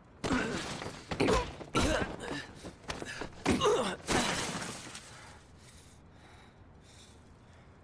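A beating in an anime soundtrack: a series of sudden blows landing in the first few seconds, with pained grunts and groans from the person being hit.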